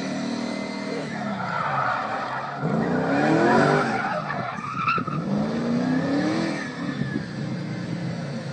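Car engines revving up and down with tyres skidding and squealing. There are two climbing-then-falling revs, the first and loudest peaking about three and a half seconds in, the second around six seconds in.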